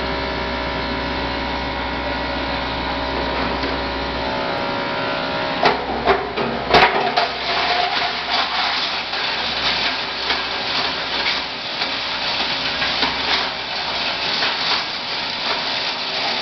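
A 15 hp granulator running empty with a steady hum and whine. From about six seconds in, material fed into its hopper is chopped by the cutting rotor, giving a dense, irregular clatter of cracks and knocks, and the machine grows louder under load.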